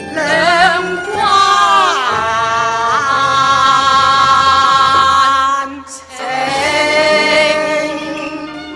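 Cantonese opera (yuequ) singing: a voice drawing out long, melismatic sung notes with vibrato over the accompanying ensemble, breaking off briefly about six seconds in before another long held note.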